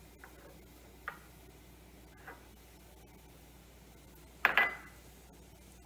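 A few faint ticks, then, about four and a half seconds in, one loud brief clink of metal kitchenware that rings for a moment.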